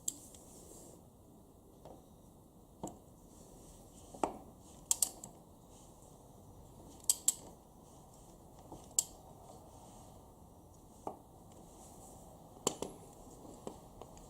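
Scattered sharp metallic clicks and light taps at uneven intervals, about a dozen in all, over a quiet background.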